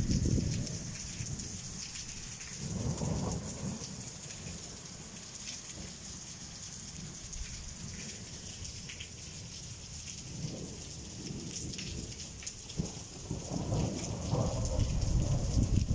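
Rain falling steadily on a clay tile roof: a constant high hiss sprinkled with the taps of single drops. Low rumbles swell up a few times, the longest and loudest near the end.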